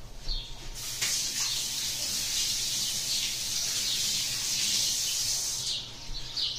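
Tap water running into a sink as hands are washed under it: a steady hiss that starts about a second in and shuts off near the end.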